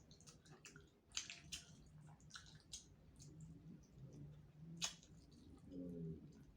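Faint close-up eating sounds: wet chewing with sharp, irregular mouth clicks and smacks, about five crisp ones, as spicy chicken heads are eaten.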